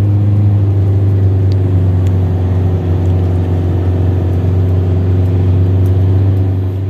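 Toyota Hiace van's engine running steadily, heard from inside the cab while driving, as an even low drone.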